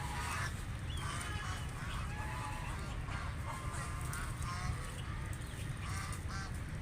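A flock of ducks quacking, many short calls overlapping one another without a break, over a steady low rumble.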